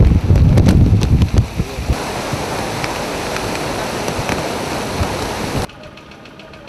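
Wind buffeting the microphone for about two seconds. Then the steady rush of a fast floodwater torrent, which cuts off abruptly near the end to a much quieter background.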